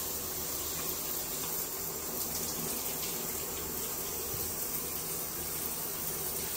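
Shower running: water spraying steadily from a wall-mounted showerhead onto the tiles.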